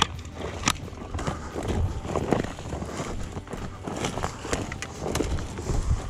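Footsteps crunching through dry scrub, with rustling of brush and clothing. Sharp clicks in the first second come from handling a shotgun.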